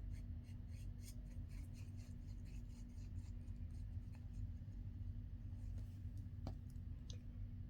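Faint paper handling: light rubbing, rustling and small scratches as a glued paper and lace piece is pressed down onto a paper craft, over a low steady hum.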